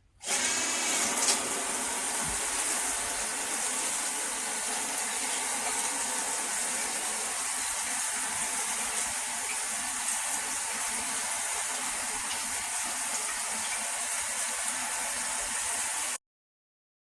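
SR SUN RISE handheld shower head spraying water, a steady hiss that starts abruptly and cuts off suddenly near the end.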